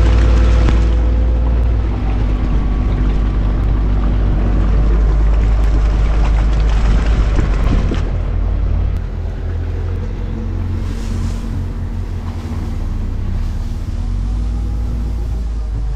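Farm tractor engine running steadily while it drives a manure spreader that flings sawdust bedding out onto the concrete, with a deep, continuous rumble. The sound drops a little in level about eight or nine seconds in.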